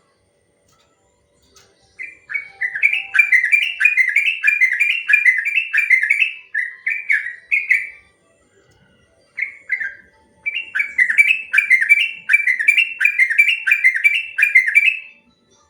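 Yellow-vented bulbul (trucukan) singing its long rapid song: a fast run of repeated rising notes, about three a second, which starts about two seconds in, breaks off briefly near the middle, then resumes in a second long run.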